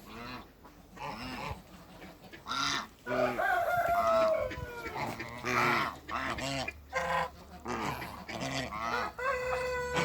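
Backyard poultry calling: geese honking in short repeated calls, with a rooster crowing in a long falling call about three seconds in and starting another crow near the end.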